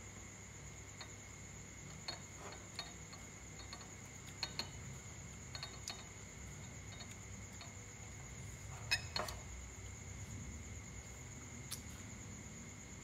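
Chopsticks clicking and clinking against a ceramic rice bowl and a glass soup bowl during a meal: scattered light taps, the loudest pair about nine seconds in. A steady high-pitched whine runs underneath.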